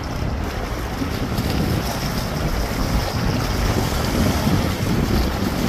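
Wind blowing hard across the microphone in a steady, gusting rumble, with surf washing against the rocks underneath.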